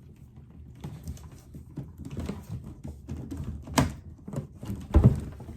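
Hard plastic parts of a RevAir hair dryer being handled as the wand is taken off its dock and fitted back in: a run of small clicks and taps, with two louder knocks in the second half.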